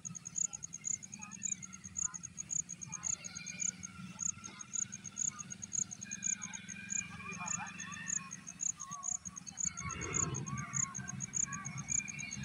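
Open-country ambience: a high, short chirp repeating evenly about four times a second, with birds calling over it. A louder rustling noise comes about ten seconds in.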